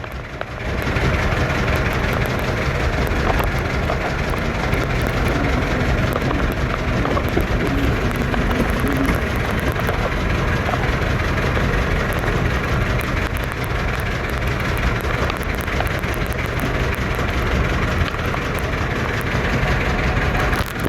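Outboard engine of the speedboat towing a banana boat running steadily, mixed with wind and water rush.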